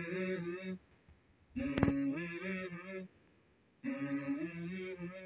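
Background music: a sung vocal line in three short phrases, separated by brief near-silent gaps, with one sharp percussive hit near the start of the second phrase.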